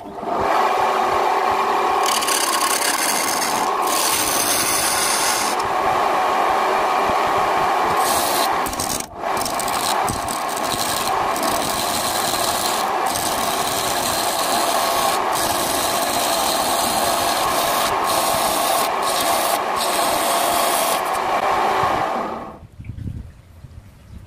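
Wood lathe turning a coffee-wood blank, a cutting tool scraping steadily against the spinning wood. It breaks off briefly about nine seconds in and stops a little before the end.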